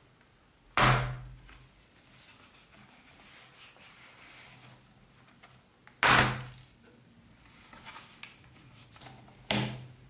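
Aluminium bottom cover of a Xiaomi Mi Notebook Pro being pried off by hand, its plastic retaining clips letting go with three sharp snaps: about a second in, about six seconds in, and near the end.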